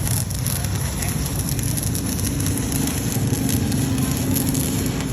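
Stick welding arc from a Kimmie inverter welder burning a 3.2 mm electrode: a steady crackling sizzle.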